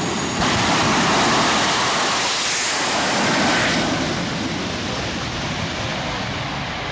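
Jet turbine engines of two jet funny cars at full power with afterburners lit, launching side by side down the drag strip. The loud rushing jet roar jumps up about half a second in and fades after about four seconds as the cars race away.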